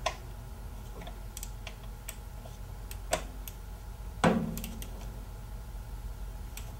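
Torque wrench ratcheting on the Vespa GTS gearbox oil drain plug: scattered light ticks as the handle is worked, a sharper click a little after three seconds, and the loudest click about four seconds in that rings briefly, the wrench clicking over at its 12.5 ft-lb setting as the plug reaches torque.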